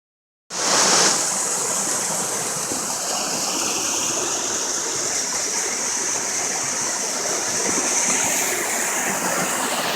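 Steady rushing of running water, starting suddenly about half a second in.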